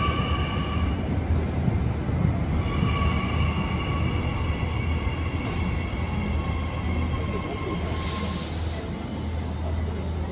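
New Intercity Fleet electric train at the platform, with a steady low rumble and a high electric whine that drops out briefly near the start and returns. A short hiss comes about eight seconds in.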